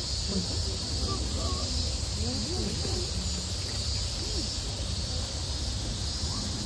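Distant crowd voices murmuring over a steady hiss and low rumble of outdoor ambience.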